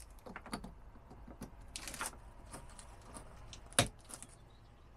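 Handling of a solar panel cable and its plug connector: scattered small clicks and rustles, with one sharper click nearly four seconds in as the plug is pushed home, connecting the folding solar panel to the charge controller.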